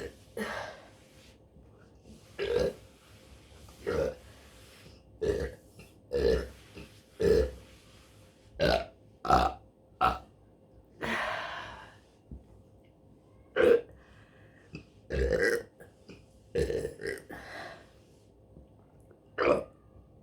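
A woman burping over and over: about fifteen short belches spaced a second or so apart, with a longer drawn-out one about halfway through and another near three-quarters of the way.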